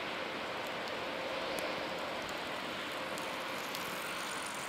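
Aquila A211 light aircraft's Rotax 912 S piston engine and propeller as a distant, steady drone, thinned by a hiss of wind and air.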